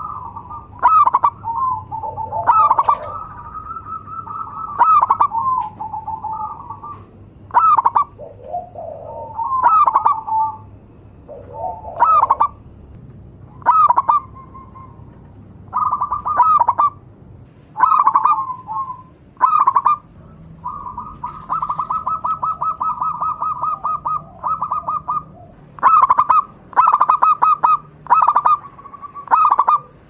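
Zebra dove (Javanese perkutut) cooing. It gives short, clipped coo phrases near one pitch, repeated every second or two with brief pauses, and a fast rolling run of notes a little past the middle.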